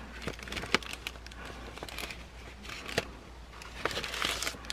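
Light crinkling and rustling of packaging as merchandise and cards are handled, with scattered small clicks and taps.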